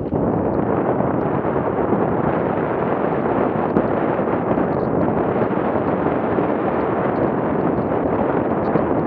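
Loud, steady wind buffeting on an action camera's microphone as a mountain bike descends a dirt trail at speed, mixed with the rumble of tyres over the ground.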